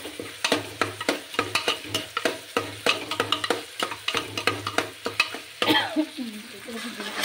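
A metal spoon stirs and scrapes rice and spices around an aluminium pressure cooker: a fast, uneven run of metallic scrapes and clinks over a sizzle of hot oil. A louder ringing metal clang comes about six seconds in, after which the sizzling carries on alone.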